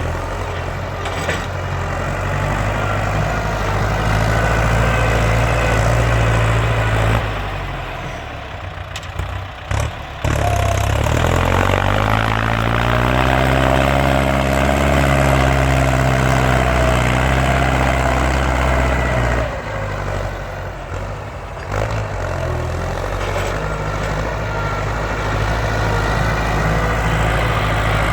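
Loud Ford farm tractor engine running. It eases off around seven seconds in, then revs up, holds and falls back over about eight seconds before settling to a steadier run.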